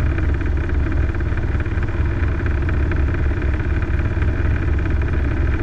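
Robinson R22 helicopter in flight, heard from inside the cabin: a steady drone of the piston engine and two-blade main rotor, with an even low throb.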